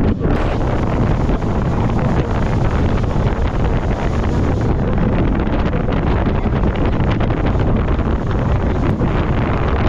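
Heavy wind buffeting the microphone on an open jet boat running at speed, over a steady rush of boat and river water.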